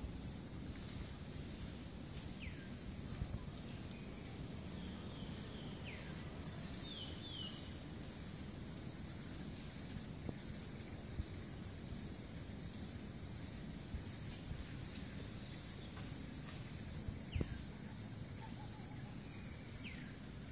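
Loud, high-pitched insect chorus in tropical forest, droning steadily and swelling about one and a half times a second, with a few short falling bird whistles over it.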